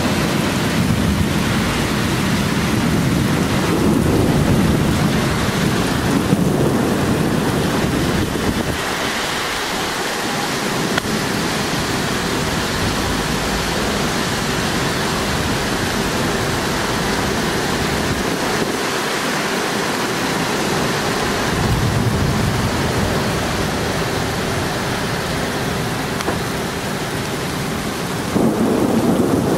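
Heavy rain falling steadily in a thunderstorm, with low rolling thunder rumbling under it. The rumble fades twice for a couple of seconds and swells louder again near the end.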